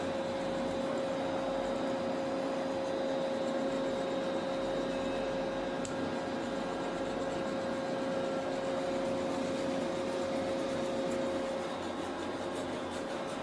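A machine running with a steady whine over a noisy hum; the whine stops near the end.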